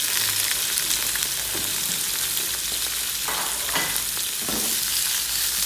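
Boiled, diced potatoes sizzling in hot oil in a frying pan, with a few short scrapes of stirring a little past halfway.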